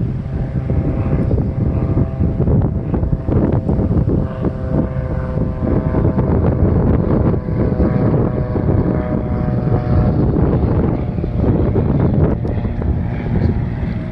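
Jet airliner engines running with a steady whine over a low rumble, and wind buffeting the microphone.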